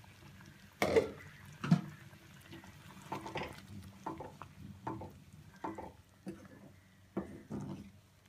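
A spatula stirring a thick, simmering cashew-paste curry gravy in a pan, in a run of short scraping strokes, several a few seconds. Two sharper, louder knocks against the pan come about one and two seconds in.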